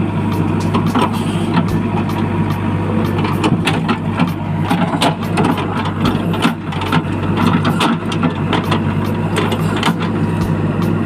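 A vehicle engine running steadily with a low hum, over frequent clicks and clatter.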